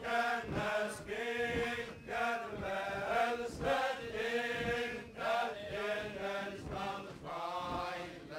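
Traditional Faroese ballad singing: a group of voices chanting a Faroese wedding song verse by verse, with regular low thumps of the dance steps underneath.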